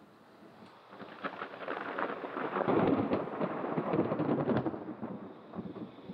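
Thunder during a thunderstorm, rumbling and crackling. It builds about a second in, is loudest in the middle, then fades away.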